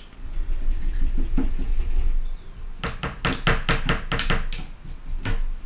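A stiff old paintbrush scrubbing back and forth in a hard watercolour pan and mixing palette to work up a dark colour. A run of quick scratchy strokes, about five a second, comes in the middle.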